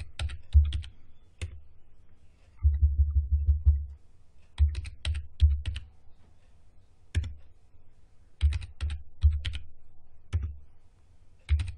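Typing on a computer keyboard: clicking keystrokes with a dull low thud, in short bursts with pauses between, as a password is typed and then typed again to confirm it.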